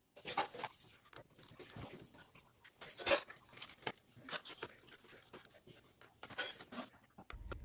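Irregular clicks and taps of hands prying the aluminium bottom cover off a Dell XPS 9560 laptop.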